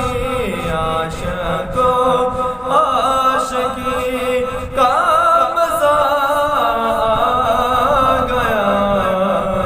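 A man singing an Urdu naat, a devotional poem in praise of the Prophet, in long, wavering held notes with slow glides between them.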